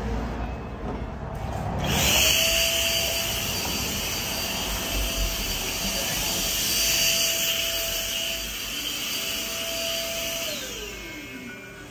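A small electric motor is switched on about two seconds in and spins up to a steady whine. It runs at an even pitch for about eight seconds, then is switched off and winds down near the end.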